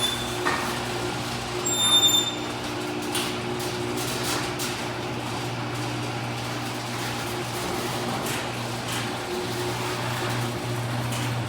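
Raynor Pilot chain-drive garage door opener running and moving an old, out-of-adjustment door: a steady motor hum with chain and door rattle, and a brief high squeak about two seconds in. The run stops near the end.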